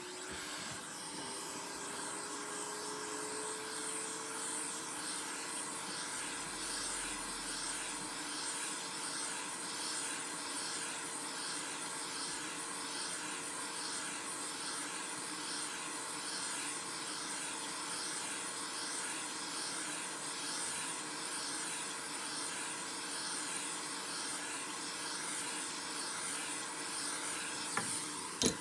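Hot air gun running steadily: a mid-pitched motor whine over a loud airflow hiss, with a faint click near the end.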